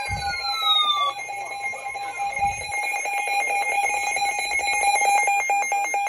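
Weather alert radio sounding its alert alarm: a steady, piercing high tone that pulses rapidly. Two falling-pitch sweeps fade out about a second in.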